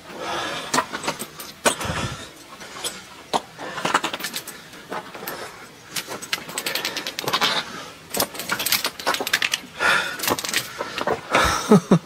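Footsteps crunching and scraping on a rocky, icy trail, irregular, with light metallic clinking mixed in.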